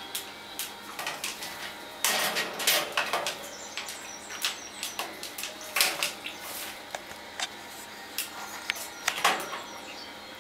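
African grey parrot bathing in a small plastic water dish: irregular splashes as it dips its head into the water, starting about two seconds in and going on until near the end.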